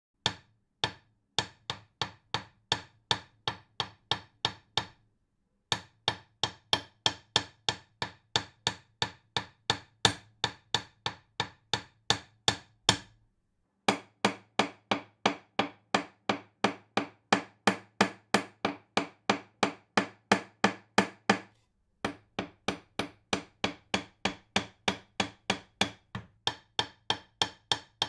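A hammer driving a nail: steady blows about two a second, each with a short metallic ring. The blows come in four runs broken by brief pauses.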